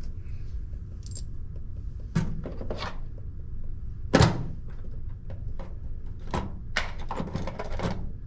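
Hand tools and hardware being handled: a string of knocks and clatters, the loudest a sharp knock about four seconds in and a burst of clatter near the end, over a steady low hum.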